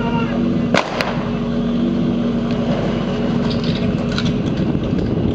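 Portable fire pump's petrol engine running steadily, with two sharp cracks about a second in: the starting shot of the firefighting-sport attack. After the start the engine's note changes as the pump is worked.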